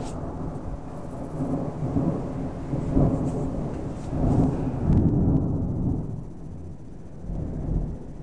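Thunder rumbling in rolling swells, loudest from about three to five seconds in, then dying down, with a smaller swell near the end.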